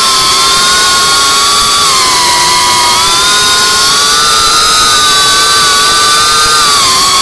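Electric motors and propellers of an iFlight Cinelog35 ducted cinewhoop FPV drone whining in flight, heard from the onboard camera. The pitch sags a little about two seconds in, rises again with throttle, and dips once more at the very end.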